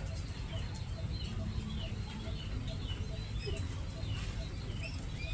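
Small birds chirping, with many short high chirps scattered throughout. Under them runs a faint, even pulse about three times a second over a steady low rumble.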